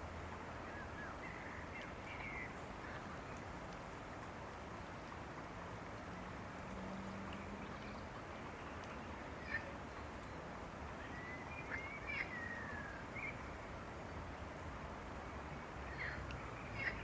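Outdoor ambience: a steady background hiss with occasional short bird calls, a few at a time, clustering near the end.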